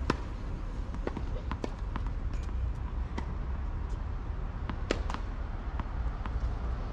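Tennis balls being struck by rackets and bouncing on a hard court: sharp pops at irregular intervals, several a second at times, over a steady low rumble.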